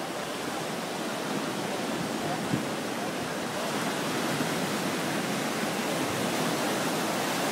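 Waves breaking and surf washing over the shallows of a sandy beach: a steady, unbroken rush.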